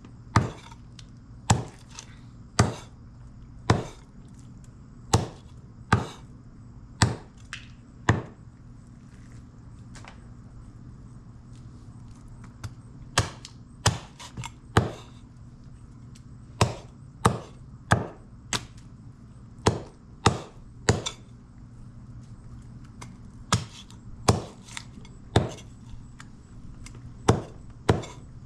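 Knife chopping on a wooden cutting board while food is cut up for cooking. The strokes are single and sharp, about one a second, with a pause of several seconds a third of the way through before the chopping resumes in short runs.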